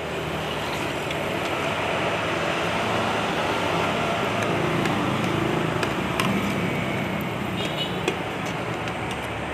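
Road traffic noise with a vehicle engine running close by, swelling over the first couple of seconds and then holding steady. A few light clicks of a metal fork against a plate sound in the second half.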